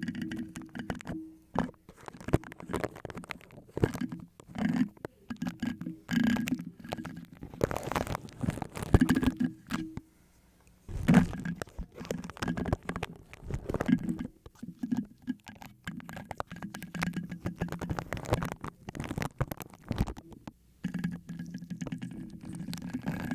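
Fast wet mouth sounds made right at the microphone: a rapid, irregular stream of lip and tongue clicks and smacks.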